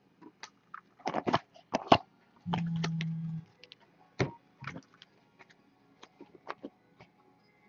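Baseball trading cards and a card pack handled by hand: a run of sharp clicks, snaps and crinkles as cards are flicked and the pack is picked up. A steady low hum lasts about a second midway.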